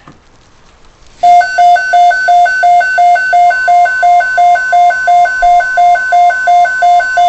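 Weather radio receiver sounding its alert for a severe thunderstorm watch: a loud two-pitch beeping at about three beeps a second, starting suddenly about a second in. The steady NOAA Weather Radio alert tone comes in faintly underneath about three and a half seconds in.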